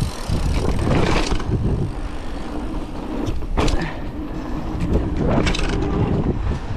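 Bicycle ride filmed from the moving bike: wind rumbles steadily on the microphone over tyre noise and frame rattle, with a few short clatters about a second, three and a half seconds and five and a half seconds in.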